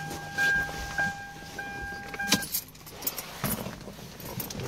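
A car's electronic warning tone sounding steadily, then cutting off suddenly a little over two seconds in, over scattered clicks and knocks.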